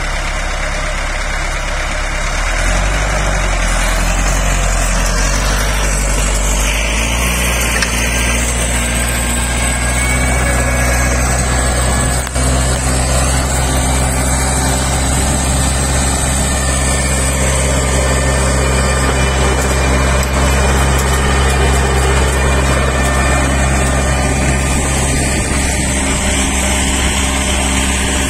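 Massey Ferguson 3050 tractor's diesel engine running steadily under load while it pulls and drives a power harrow and seed drill through tilled soil. The engine note steps up after about two seconds and settles again a few seconds later.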